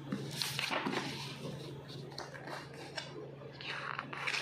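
Paper rustling as sheets and an instruction booklet are handled, with rustles about half a second in and again near the end, over a steady low hum.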